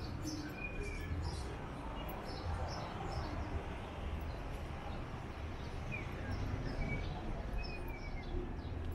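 Outdoor street ambience: a steady low rumble and noise bed, with about six short, high bird chirps scattered through it.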